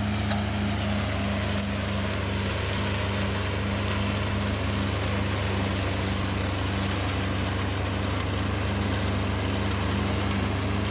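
Used Iseki 11 HP diesel engine on a flail-shaft grass cutter running steadily at a constant speed, with an even hiss over the engine note.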